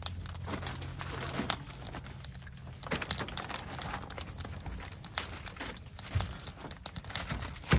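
Nylon fabric of a Napier truck bed tent and a sleeping bag rustling and crinkling as a person shifts around on the tent floor and lies down, with scattered sharp crinkles. A low hum sits underneath for the first three seconds.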